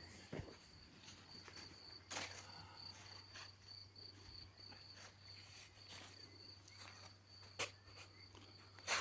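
Faint insects, probably crickets, trilling as one steady, high, slightly pulsing note, with a few short knocks now and then.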